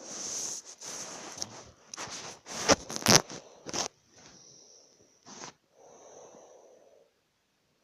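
A man snoring in his sleep: irregular, noisy breaths with two sharp, loud snorts about three seconds in, then a couple of softer breaths.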